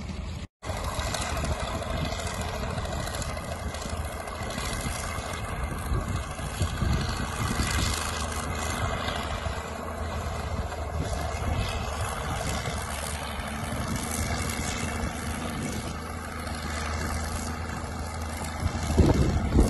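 Crawler dozer's diesel engine running steadily in the distance while towing a train of loaded sleighs: a low, even hum under a wash of noise. The audio drops out for an instant about half a second in.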